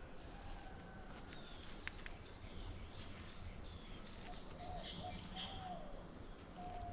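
Birds calling faintly over a steady outdoor background, with a run of short, falling whistled notes repeated several times in the second half and higher chirps above them.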